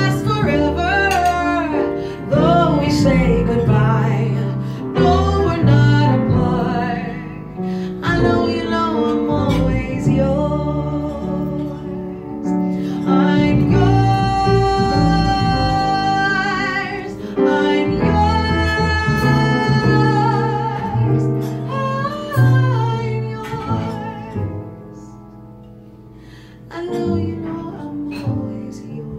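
Live female vocal with piano accompaniment: the singer moves through wordless runs and holds one long note with vibrato about halfway through. The music drops to a quiet stretch near the end before piano notes come back in.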